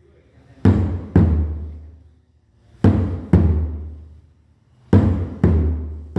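Thai longboat drum being struck in pairs of heavy booming beats about half a second apart, three pairs at roughly two-second intervals, each beat ringing out low.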